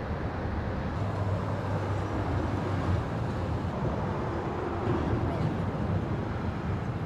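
Road traffic: a steady rumble of passing vehicles.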